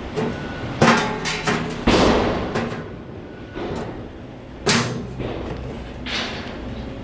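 Corten steel planter panels knocking and scraping as they are fitted together: a sharp metal knock about a second in with a few clicks after it, a scrape at about two seconds, and another sharp knock near the end.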